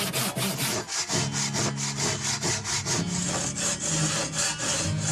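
Hand saw cutting through wood with rapid, even back-and-forth strokes.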